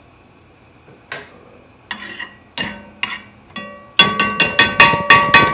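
A kitchen utensil knocking against a bowl in ringing clinks, a few spaced strikes and then a fast run of about eight near the end.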